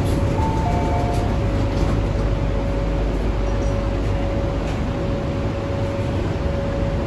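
MTR C-train standing at a platform with its doors opening: a descending two-note door chime sounds about half a second in, over the steady hum of the stopped train's equipment with a constant whine.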